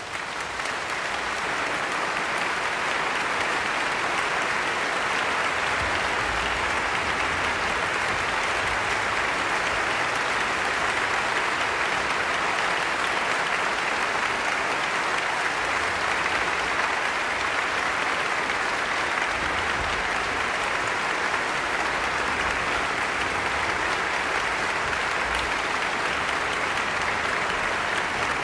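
Large concert-hall audience applauding: dense, even clapping that swells over the first second or two and then holds steady.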